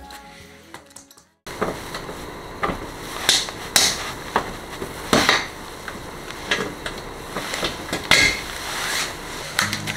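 Background music fades out to a moment of silence; then metal clicks and knocks at irregular intervals as a hex key turns a bolt in a car's rear bumper panel.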